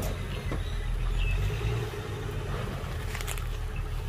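Dump truck's diesel engine running steadily, a low hum with no change in pace.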